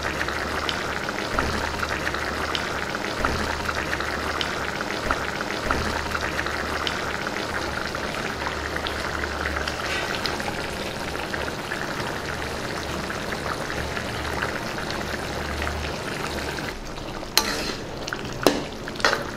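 Tamarind gravy bubbling and sizzling steadily as it simmers in a pan, with a low steady hum under it. Near the end a ladle knocks a few times against the pan as the gravy is stirred.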